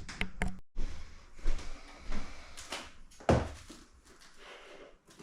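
A series of knocks and thumps with some rustling, about six of them over the first three seconds or so, from a package of artificial trailing plants being handled and opened.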